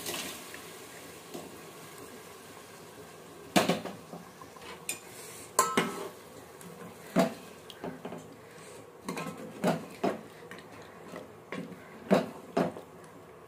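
Metal ladle knocking and clinking against the side of an aluminium cooking pot as beef in broth is stirred. There are about a dozen irregular knocks, starting a few seconds in.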